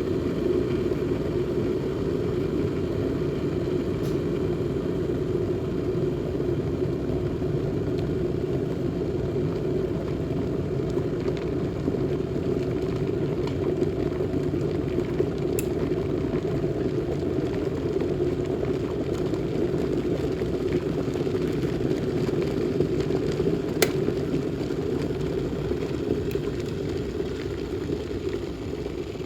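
Kettle boiling water: a steady, low rumbling bubble with a few faint ticks, easing slightly near the end.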